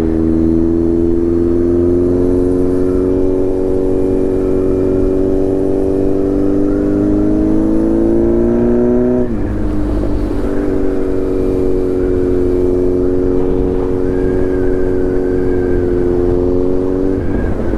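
Kawasaki Z900's inline-four engine running through a full titanium Arrow exhaust under way. The note climbs steadily under throttle for about nine seconds, drops sharply, then holds steady before dropping again near the end.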